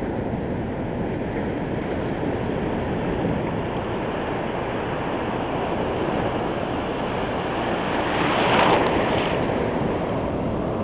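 Surf washing onto a sandy beach, a steady hiss of water, swelling louder for a moment about eight seconds in as a wave breaks close by.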